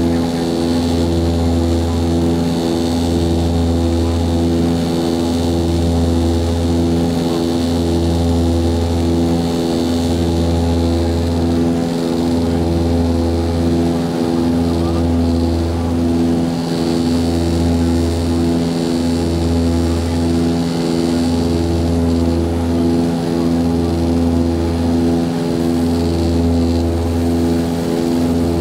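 Cabin drone of an Antonov An-24's two Ivchenko AI-24 turboprop engines and their propellers, running steadily with a deep hum and several steady tones above it. The low hum swells and fades about every two seconds, the beat of two propellers turning at slightly different speeds.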